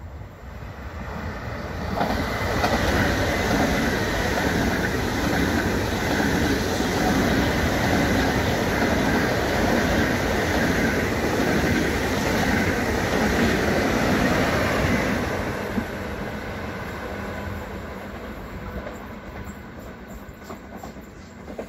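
SBB EuroCity electric train passing at speed, a rush of wheel and rail noise. It builds over the first two seconds, holds loud for about thirteen seconds as the carriages go by, then fades away.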